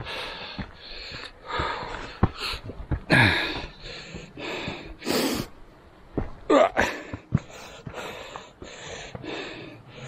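Heavy, hard breathing from a hiker climbing a steep path, in repeated puffs, with scattered scuffs and taps of footsteps.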